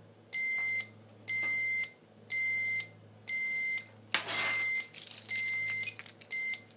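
Menvier TS690 intruder alarm panel's small loudspeaker beeping a high-pitched tone, about one half-second beep a second, as the system is being unset. Partway through, a rattle of keys comes in over shorter beeps of the same pitch.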